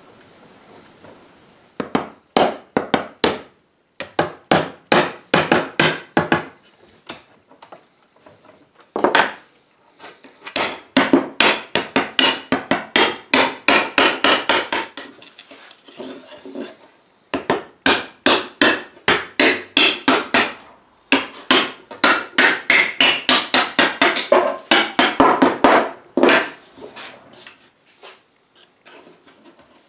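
Hammer striking wooden wedges driven into the seam between oak table-top boards, forcing a loose glued and doweled joint open. The taps come in quick runs of several a second, with short pauses between the runs.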